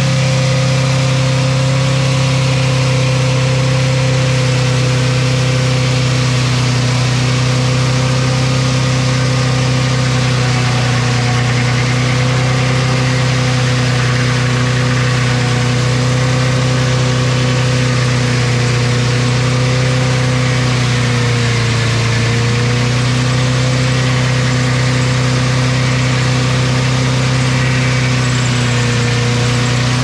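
Sawmill head rig running under load as the carriage feeds a log through the saw: the engine and saw hum steadily. The pitch sags slightly about two-thirds through, then recovers.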